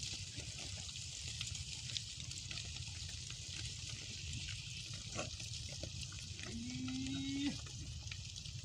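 Steady hiss with scattered faint clicks. About two-thirds of the way through, one low call lasting about a second, rising slightly in pitch, from a farm animal.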